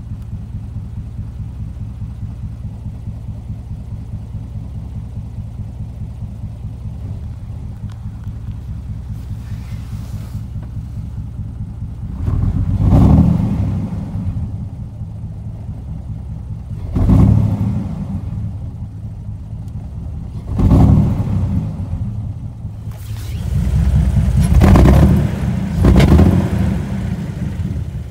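Jeep Wrangler 4.0-litre straight-six idling steadily, then revved four times from about twelve seconds in, the last rev held longest. The idle is somewhat rough and the engine bogs and misfires under throttle, with no trouble codes stored.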